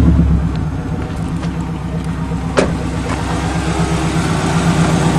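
Subaru flat-four boxer engine running steadily, freshly started after long sitting and running on nearly two-year-old gas. One sharp knock about halfway through.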